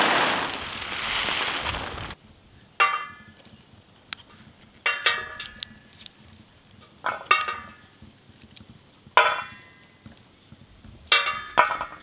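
In-shell peanuts pouring out of a jute sack onto a steel surface, a dense rattling hiss that stops about two seconds in. Then shelled peanut kernels are dropped onto steel plates, each landing with a short ringing clink, several times a couple of seconds apart, some in quick pairs.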